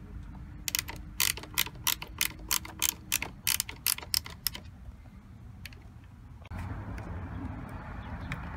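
Socket wrench ratchet clicking steadily, about four clicks a second, as a 10 mm socket backs out a screw; the clicking stops about halfway through.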